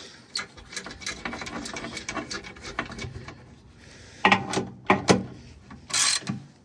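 Ratchet wrench with a 12 mm socket clicking in quick, fairly even strokes while skid plate bolts are run in snug, followed by a few louder knocks of metal and tools.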